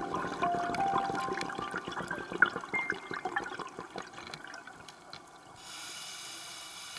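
Irregular underwater bubbling and crackling, while background music fades out over the first few seconds; a steady hiss sets in near the end.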